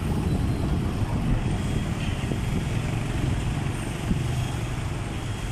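Heavy diesel vehicle engines running, a steady low rumble, as a lorry drives slowly in.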